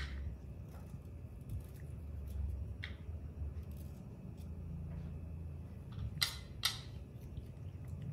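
A small kitchen knife cutting through firm fruit flesh: a few short crisp snicks, the loudest two about half a second apart near the end, over a low steady hum.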